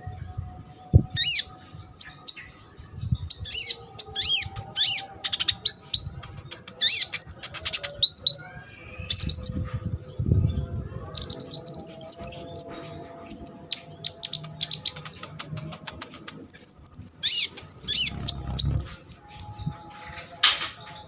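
Kolibri ninja ('konin') sunbird singing a fast, varied song of high chirps, sweeping notes and trills, with a rapid even trill about halfway through and a short high buzz later on; the song is filled with imitations of other birds' calls.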